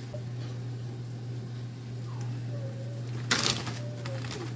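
A plastic zip-top freezer bag rustling briefly as it is handled, about three seconds in, over a steady low hum.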